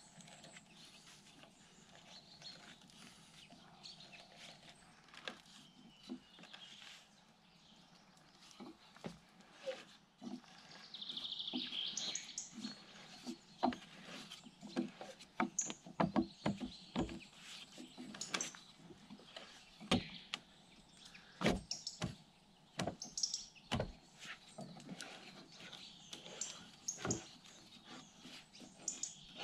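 T-handle hand auger boring into a log, the bit cutting the wood with irregular sharp clicks and creaks as it is turned, more frequent in the second half.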